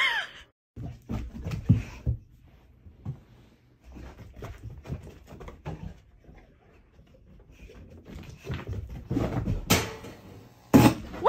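Kitten's wailing meow ending right at the start, then irregular knocks, scuffs and thumps of pets moving and playing in a small room. Near the end come two sharp loud hits about a second apart.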